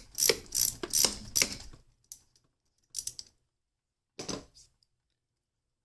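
Socket ratchet clicking in short, even strokes, about three a second, as a nut is backed off a battery cable terminal. It stops just before two seconds in and is followed by two or three single clicks of the tool.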